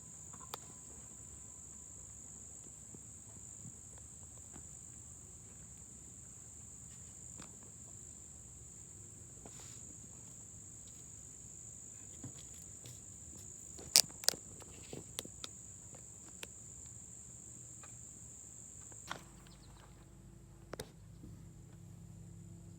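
Insects chirring in a steady high-pitched chorus, with a few sharp clicks; the loudest two come close together about two-thirds of the way through.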